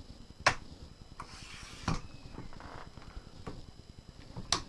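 Yunteng VCT-288 monopod's leg sections being pulled out and locked: sharp clicks of the section locks, loudest about half a second in, near two seconds and near the end, with a short scraping slide of the tube just before the middle click.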